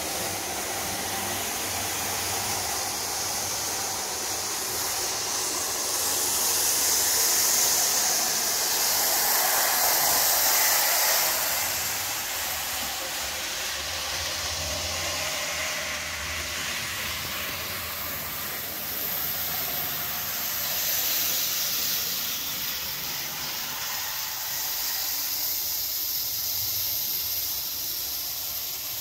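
Model train running on its track: a steady, high-pitched whirring hiss of the locomotive's motor and the wheels on the rails, swelling louder as the train comes close, most of all in the first half.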